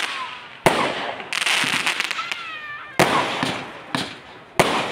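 Fireworks going off: aerial shells and rockets bursting with sharp bangs, loudest about half a second in, about three seconds in and near the end. Each bang is followed by a fading hiss.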